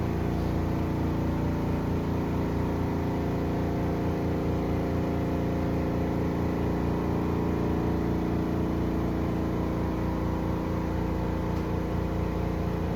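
Portable washing machine's spin dryer spinning a load of laundry with jeans, wringing the water out: a steady motor hum with several steady tones and a fast low pulse underneath.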